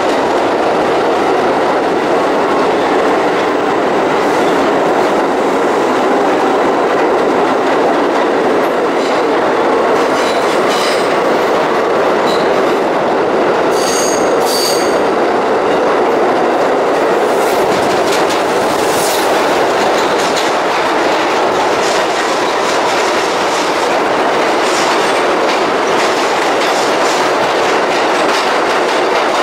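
New York City subway train running through a tunnel, heard from inside the car: steady loud wheel-on-rail noise with clicks over rail joints. A few short, high wheel squeals come between about ten and fifteen seconds in.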